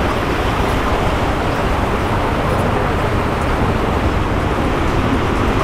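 Steady rushing of water flowing down a waterslide flume, a loud, even noise with no breaks.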